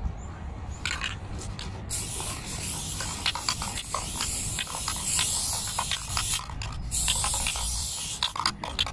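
Aerosol spray paint can spraying onto a wall: a short hiss about a second in, then a long hiss of about four seconds, a brief break, and another hiss near the end. Scattered light clicks and a steady low rumble lie underneath.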